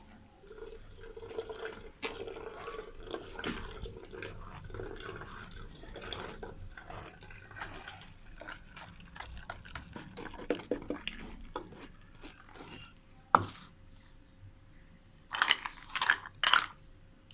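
Blended cucumber and mint sharbat being pressed and strained through a steel sieve into a glass jug: liquid dripping and trickling through the mesh, with many light scrapes and clicks. Sharp knocks come once about two-thirds of the way in and as a short cluster near the end.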